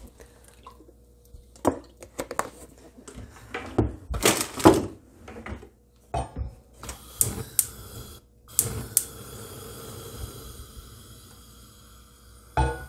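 Clicks and knocks of a cast-iron frying pan being handled on a gas hob, then from about two-thirds in a steady faint hiss of the lit gas burner under it, with a loud knock of the pan near the end.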